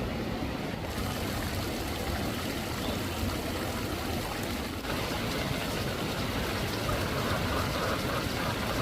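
Floodwater rushing past, a steady wash of flowing water that keeps on without a break.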